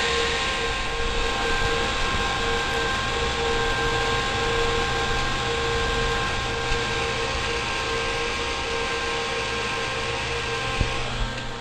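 Cooling fans of an Intel Xeon server system (CPU cooler fans and case fan) running loud and steady, a rushing noise with a few steady whining tones over it. The noise drops noticeably near the end as the fans slow while the board starts its boot.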